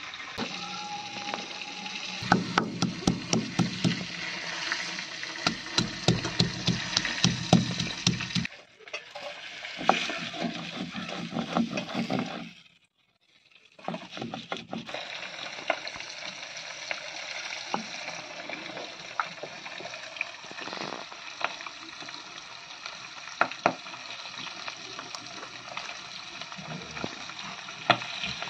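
Stone pestle (nora) rolled and rubbed over a shil grinding slab, grinding fresh aromatics into a wet paste: a steady rasping scrape with repeated clicks of stone on stone.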